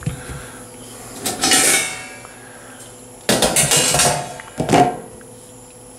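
Thin-gauge stainless-steel deep-fryer parts clattering as they are handled and set down: the sheet-metal guard plate and wire baskets clank against the fryer in two bursts, the first with a brief metallic ring, then a smaller knock.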